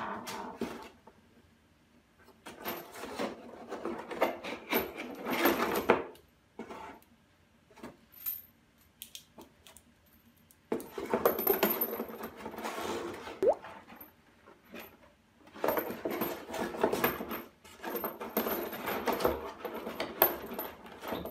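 Moen Essie stainless pull-down kitchen faucet and its hoses being handled in a molded pulp packaging tray: three bouts of rustling, scraping and light clinks, with quiet pauses between.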